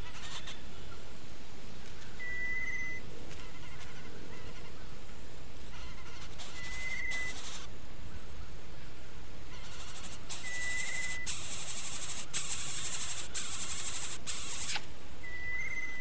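Animal sounds at a nest. A short, high whistled note repeats about every four seconds. In the second half come several bursts of loud, high hissing.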